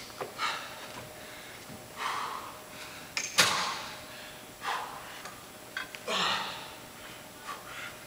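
A man's heavy, forceful exhalations, about one every second and a half, in time with the reps of a dumbbell split squat, with a few light clicks between them.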